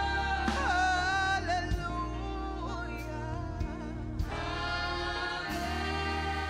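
Live gospel worship music: sustained keyboard chords under a woman's voice singing a wavering, ornamented line, with a few light drum taps.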